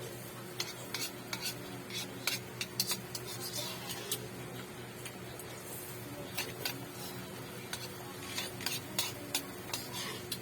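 Cutlery clinking and scraping against a dish while eating noodles and rice: irregular sharp clicks in two spells with a short lull near the middle, over a steady low hum.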